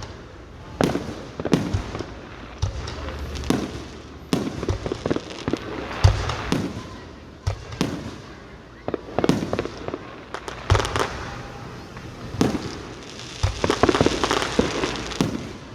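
Fireworks going off: a steady run of sharp bangs and booms at irregular intervals, with a dense stretch of crackling near the end.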